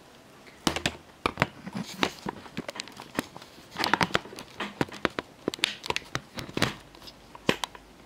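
Camera handling noise: scattered clicks and knocks, with patches of rustling about two and four seconds in, as a handheld camera is moved about and fitted back onto a tripod.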